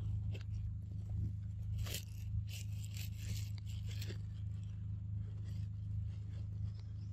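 Scattered scraping and crunching noises, most of them between about two and four seconds in, over a steady low hum.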